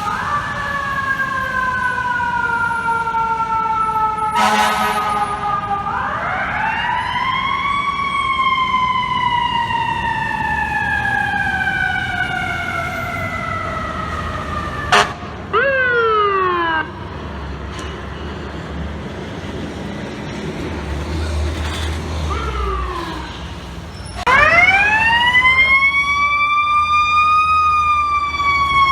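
Fire truck sirens on an emergency response: a siren winds up about six seconds in and slowly winds back down, winds up again near the end, and a burst of quick falling yelps sounds about halfway through. A short air horn blast comes about four seconds in.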